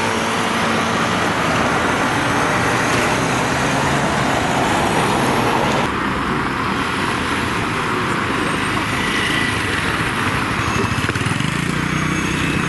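Street traffic: cars and other road vehicles passing, a steady dense wash of road noise with a low engine rumble swelling near the end.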